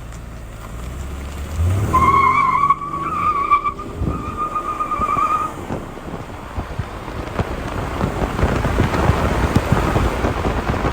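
Chevy Impala accelerating hard: the engine revs up, then the tyres squeal in a wavering whine for about three and a half seconds, giving way to rising rushing road and wind noise as it picks up speed.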